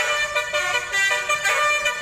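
Bus telolet horn, a Basuri multi-tone air horn, playing a quick melody: several tones sound together and step to new pitches every fraction of a second.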